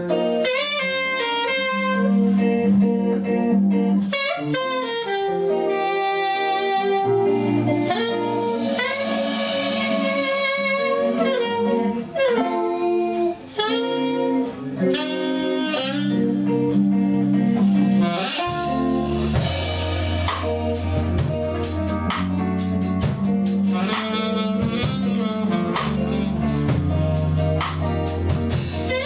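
Live band music led by a saxophone playing a melody with vibrato over guitar and keyboard chords. About eighteen seconds in, the bass and drum kit come in fuller, with steady cymbal strokes.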